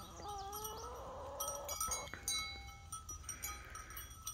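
A sheep bleats once, a single long call of about a second and a half that holds a steady pitch.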